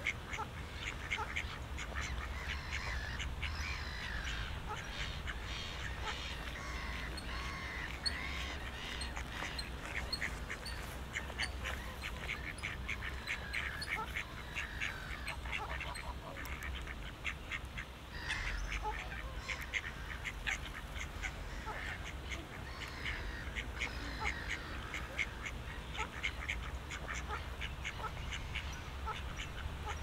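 Ducks quacking and chattering in a continual, irregular stream of short calls, with other birds calling among them, over a steady low rumble.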